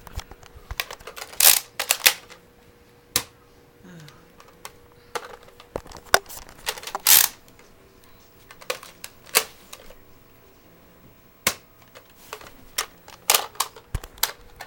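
Irregular sharp plastic clicks and clacks from a Nerf blaster being handled as its chambers are shuffled, with a few louder clusters of clicks.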